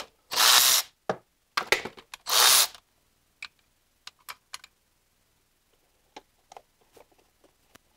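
Cordless electric ratchet spinning out valve cover bolts in two short bursts, each about half a second long. After that come scattered light clicks and taps as parts are handled.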